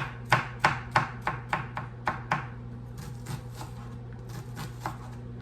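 Kitchen knife chopping green onions finely on a cutting board: quick, even strokes about three to four a second, loudest for the first couple of seconds and then lighter, over a steady low hum.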